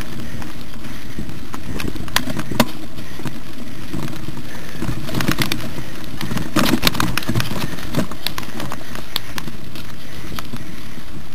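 Mountain bike descending a rough singletrack: a steady low rumble of riding noise, with irregular rattles and knocks from the bike jolting over stones, a couple about two seconds in and a thick cluster in the middle.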